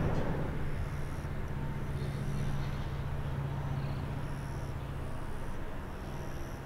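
Distant jet airliner engines, a steady low drone, from the Airbus A350-941's Rolls-Royce Trent XWB turbofans as it moves along the runway. Faint high chirps come and go above it.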